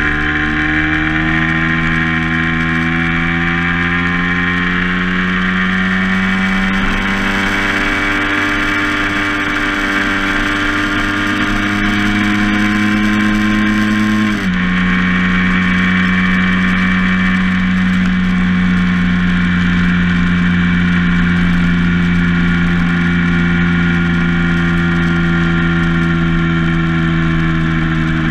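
A vehicle's engine runs at a steady speed while driving, with a constant pitched note over rushing road noise. About halfway through, the engine note changes abruptly.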